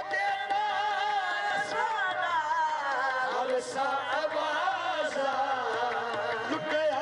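Qawwali: male voices singing long, gliding phrases over a held harmonium note.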